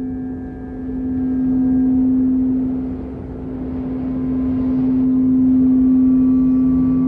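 Steady meditation drone: one held humming tone with a fainter higher tone above it, over a soft rushing haze, swelling and easing in slow waves every three or four seconds.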